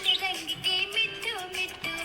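Background music with a held tone, overlaid by high, quick chirping and warbling from a budgerigar.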